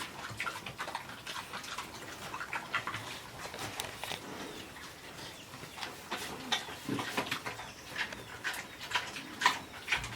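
Philippine native pigs eating feed mixed with molasses: irregular chewing and smacking at the trough, with a short low sound about seven seconds in.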